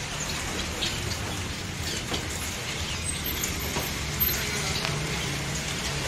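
Many short, high chirps and ticks from caged small birds, over a steady low hum.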